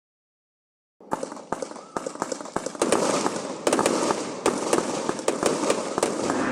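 Fireworks crackling and popping, many sharp cracks in quick irregular succession over a hissing spray, starting suddenly about a second in and growing louder.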